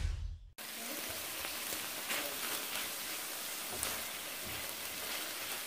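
A short whoosh fades in the first half second. Then sliced pork, onion and shiitake mushrooms sizzle steadily in a frying pan as they are stir-fried with a spatula.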